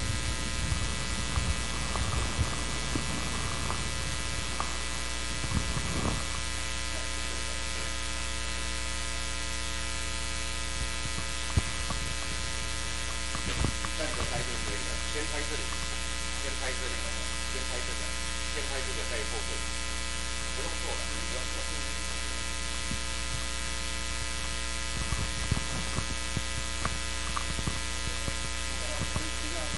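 Steady electrical hum with many even overtones, like mains hum in the audio line, unchanging throughout. Faint indistinct voices come and go in the background around the middle and again near the end.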